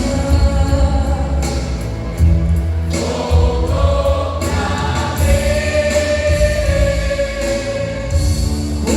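Gospel vocal group singing in harmony over instrumental backing, holding a long note through the second half.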